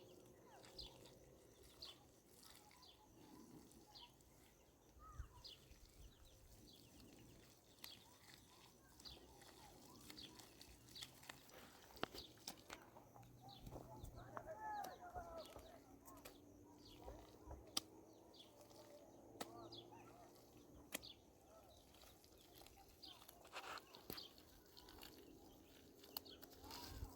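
Faint outdoor ambience of scattered short bird chirps, with a brief warbling call about halfway through and occasional sharp clicks or knocks.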